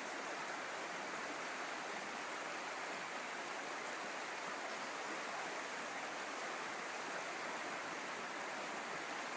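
A river's water rushing, a steady even hiss.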